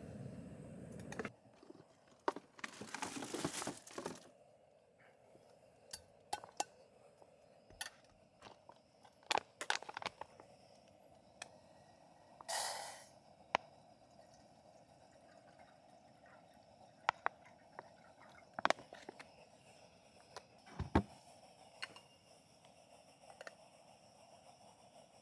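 Irregular small clicks, knocks and brief rustles of objects being handled and set down, with a dull thump about 21 seconds in.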